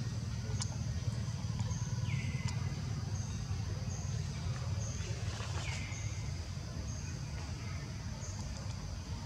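Outdoor forest ambience: a steady low rumble, with a short falling bird call twice, a few seconds apart, and faint high chirps repeating.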